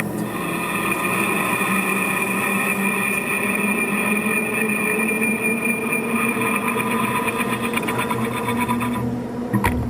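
Motor of a Kaltenbach structural-steel sawing and drilling machine running steadily with a whining hum; it stops about nine seconds in, followed by two sharp clicks.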